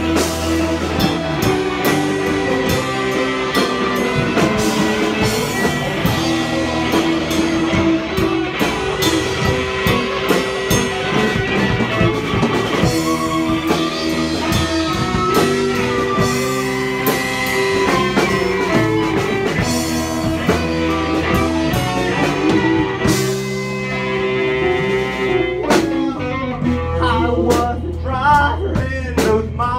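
A live band playing: fiddle over electric guitar, bass and drum kit.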